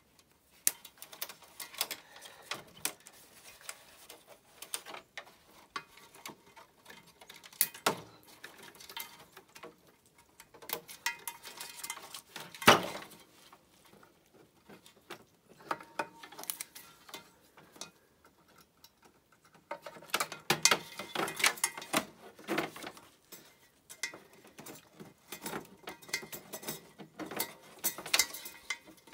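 Hand-stripping the inside of a CRT television: wires, cable and plastic and metal parts being pulled and knocked about around the picture tube, a run of scattered clicks and rattles. One sharp knock comes about a third of the way in, and the clatter is busiest about two-thirds in.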